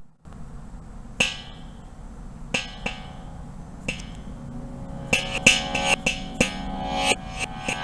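Electronic percussive sound effect: a few separate struck notes with a brief swell around each, then from about five seconds a quick run of ringing, pitched struck notes.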